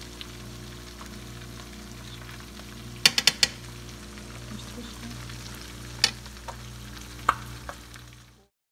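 Flour-coated perch fillets frying in oil in a pan, a steady sizzle, with metal forks clinking against the pan as the fillets are turned. There are four quick clinks about three seconds in and single clinks near six and seven seconds. The sizzle fades out just before the end.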